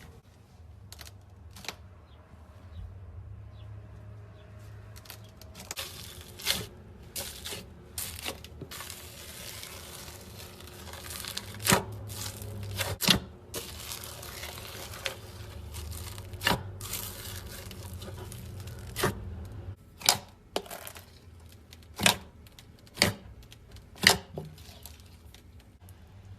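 Close-up handling noise of slime making: crinkling and tearing of packaging or plastic, with irregular sharp snaps and pops that grow louder and more frequent in the second half.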